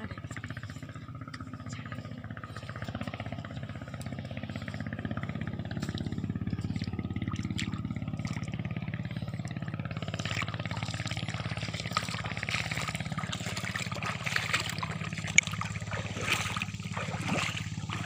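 Footsteps wading through shallow seawater over sand, splashing from about ten seconds in, over a steady low engine-like drone.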